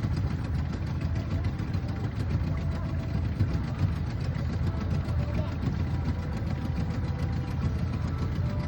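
Boat engine running steadily at a low, even speed, with a deep rumble that does not rise or fall.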